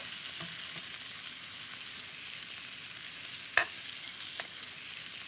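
Floured calf's liver slices sizzling steadily in hot oil and butter in a skillet, a metal spatula moving them around in the pan. One sharp clink of the spatula against the pan about three and a half seconds in, and a lighter one just after.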